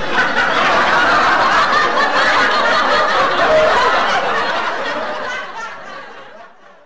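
Laughter, fading out over the last few seconds.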